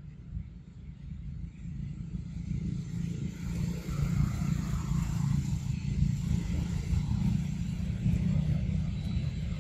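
Low, steady rumble of a distant engine, swelling about three seconds in and then holding.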